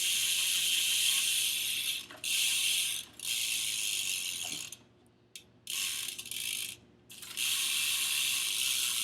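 Primo Remix rear hub on a BMX bike freewheeling: its pawls ratchet in a fast, even buzz. It comes as about six spins, each half a second to two and a half seconds long, each stopping abruptly.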